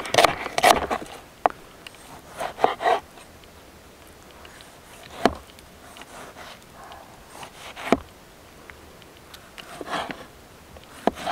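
Knife chopping on a wooden cutting board, cutting through red onion and then tomato: a quick run of chops at first, then scattered single knocks of the blade on the board, with a few more chops near the end.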